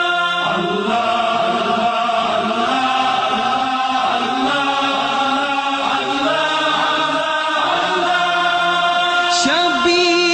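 Wordless devotional chanting: voices hold long notes that shift pitch every second or two over a steady sustained background tone, as the opening of a nasheed praising God.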